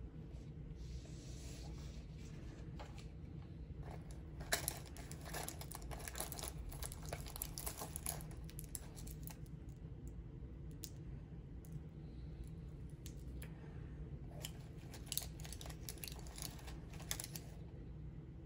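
Rustling, clicking and crinkling as a hand rummages through small items inside a zippered pouch, in two bouts, the first about four seconds in and the second near the end, over a steady low hum.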